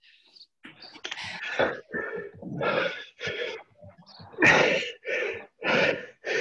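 A person breathing hard from exercise, with sharp gasping exhalations coming about every half second to second.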